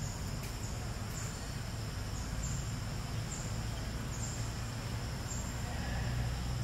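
Steady, high-pitched insect chorus with an unbroken drone, over a continuous low rumble.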